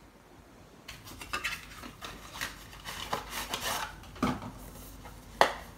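Cardboard sunglasses box being handled and opened: a run of taps and scrapes from the packaging starting about a second in, with a sharp click near the end.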